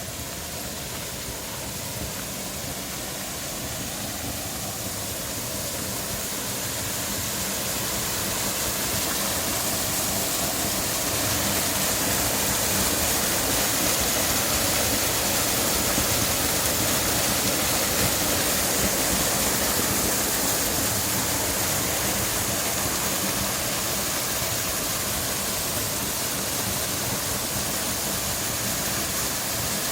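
Water pouring over the Kanae Falls waterfall, a steady rushing that grows louder over the first twelve seconds or so and then holds even.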